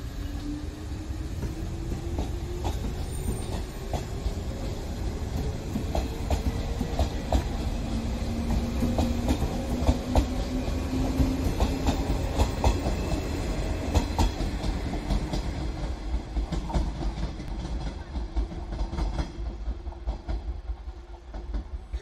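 Electric train moving along the track, its wheels clicking over rail joints over a steady rumble, with a motor whine that rises slowly in pitch as it gathers speed. It fades toward the end.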